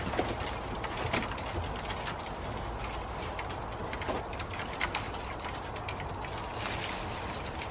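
Dry twigs and branches crackling and snapping, with scattered sharp cracks, as a person pushes and climbs through dense bushes and over a fallen log.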